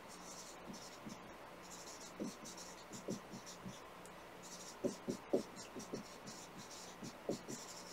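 Marker writing on a whiteboard: a faint run of short strokes, in quick groups with brief pauses between them.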